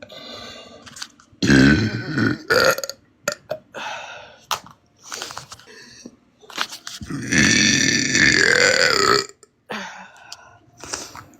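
A woman burping loudly. There is a short burp about a second and a half in, then a long drawn-out burp of about two seconds near the end whose pitch rises and then falls, with smaller sounds in between.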